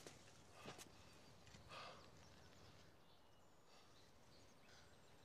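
Near silence: faint outdoor ambience, with a few soft rustles in the first two seconds and faint bird chirps.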